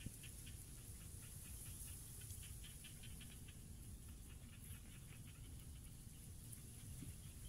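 Quiet outdoor ambience: faint, quick high chirps or ticks over a low rumble, thinning out about halfway through.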